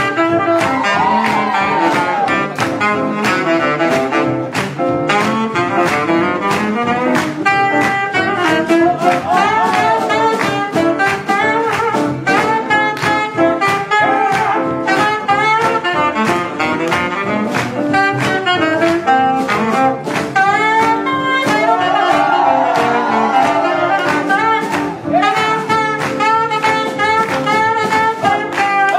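Live swing jazz band playing: saxophones and brass horns over double bass and drums, with a steady driving beat.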